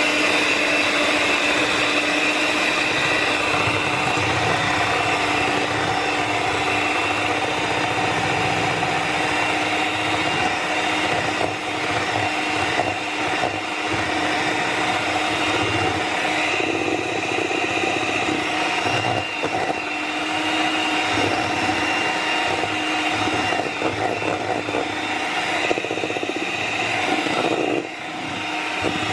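Electric hand mixer running at a steady speed, its twin beaters whisking egg whites into foam in a stainless steel bowl. The level dips briefly near the end.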